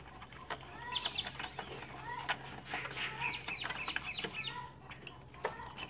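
Birds calling in quick chirping and clucking notes, over a steady low hum, with a few sharp clicks.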